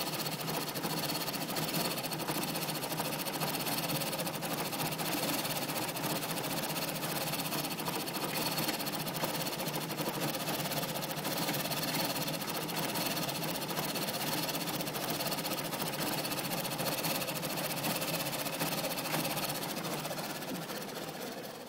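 2004 Mazda 6's 2.3-litre four-cylinder engine idling roughly with a steady mechanical chatter, a rough idle that set in after the car stood for three months. The sound fades off near the end.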